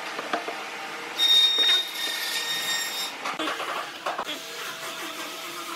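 Curved wooden pieces knocked and slid on a wooden workbench as they are handled and fitted together, with several scattered knocks. A steady mechanical whine runs under it and grows louder for about two seconds, starting just after a second in.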